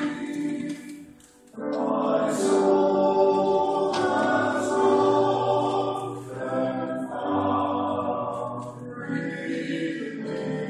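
Men's chorale singing together, with a short break between phrases about a second and a half in before the next phrase starts.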